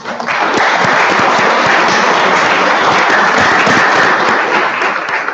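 Audience applauding, starting at once and tapering off near the end.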